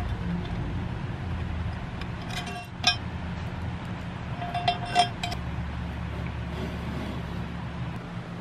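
Small steel hardware (bolt, washer and nut) clinking against a steel bracket and box as it is fitted: a few sharp, ringing clinks about two and a half to three seconds in and again around five seconds, over a steady low hum.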